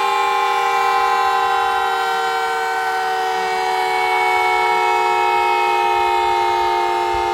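Outdoor warning siren on test, sounding a steady chord of several tones whose pitch sags slowly downward.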